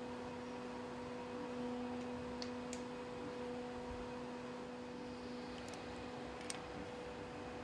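A steady hum made of two even tones, one an octave above the other, with a few faint light clicks about two and a half, five and a half and six and a half seconds in.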